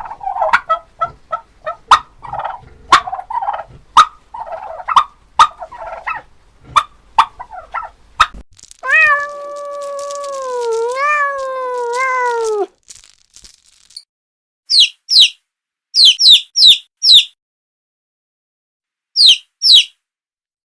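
Farm animals calling one after another: first a run of short calls mixed with sharp clicks, then one long call of about four seconds that wavers and falls at the end, then several pairs of short, high chirps.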